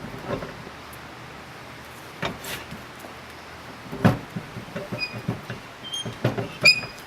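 Scattered thumps and clunks of a car tire being handled and fitted onto the vehicle's rear spare-tire carrier, the loudest about four seconds in, with a few short metallic clinks near the end.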